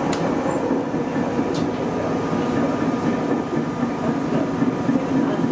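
Steady noise inside the cab of a Nagoya Municipal Subway 3000 series commuter train, with a faint steady whine and two small clicks, one at the start and one about a second and a half in.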